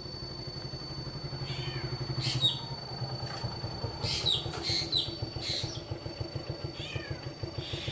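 A mockingbird giving a cat-like mewing call several times, each a short call sliding down in pitch, over a steady low engine-like drone.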